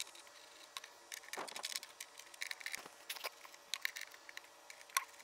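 Scattered light clicks and small knocks from battery cables, connectors and battery cases being handled as the old golf cart battery wiring is taken apart.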